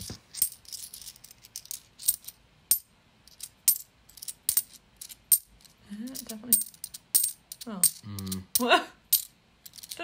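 50p coins clinking together in the hand, a quick irregular string of sharp metallic chinks, each with a short bright ring. The coins are being sounded to compare them, because one of them has an unusually tinny ring.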